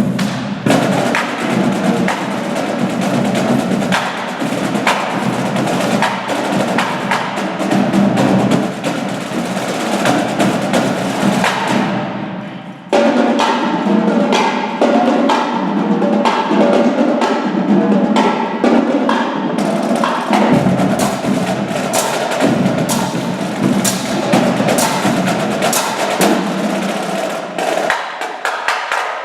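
Marching drum line of snare and bass drums playing a fast, dense percussion piece full of sharp strokes and rolls. About twelve seconds in it briefly thins and fades, then comes back in suddenly at full volume.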